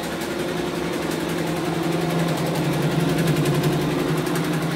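Two-head, 12-needle computerized embroidery machine running: a steady motor hum under rapid, even ticking from the needle heads as it stitches.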